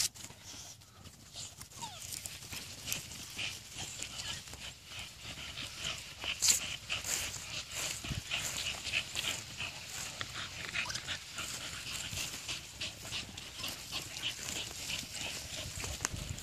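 Pit bull panting in a run of short breathy puffs, with footsteps crunching through dry grass and fallen leaves.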